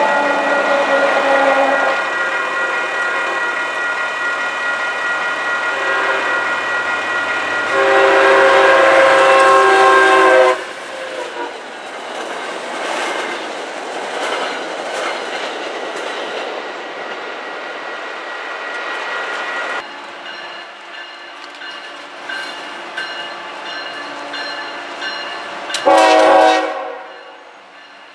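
Grade-crossing signal bells ringing while an MBTA commuter train sounds its horn, with a long blast about eight seconds in. The train then passes over the crossing with wheels clicking over the rail joints. Near the end a freight locomotive gives a short horn blast.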